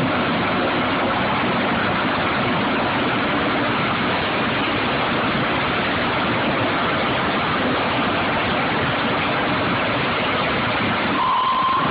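Drilling rig machinery running while pipe is tripped into the hole: a loud, steady noise, with a short steady beep near the end.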